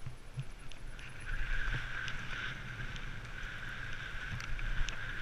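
Mountain bike rolling fast down a gravel track, heard from a helmet-mounted camera: wind on the microphone, tyre rumble and scattered gravel clicks. From about a second in, a steady high buzz joins and carries on.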